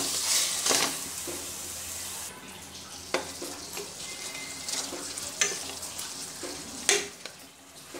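Pieces of rita fish sizzling in oil and spice paste in a pan while a wooden spatula stirs them, with a few sharp scrapes against the pan, the loudest near the end. This is the fish being braised (kosha) in the masala.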